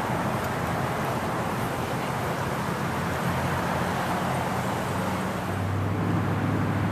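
Steady rumble of distant engines over an even background hiss, with a low hum that grows stronger about five and a half seconds in.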